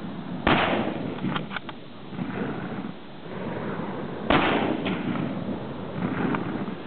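Two rifle shots about four seconds apart, each a sharp crack with a short echo, followed by a few lighter clicks. These are follow-up shots at a black bear already hit by the first round.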